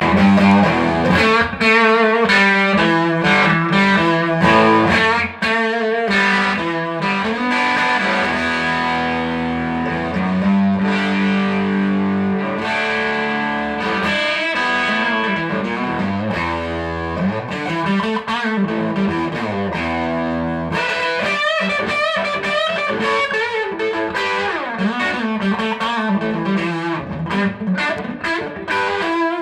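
1970 Gibson Les Paul Custom electric guitar played through a 1966 Fender Pro Reverb valve amp with no pedals: a continuous lead passage of quick note runs mixed with held notes and chords.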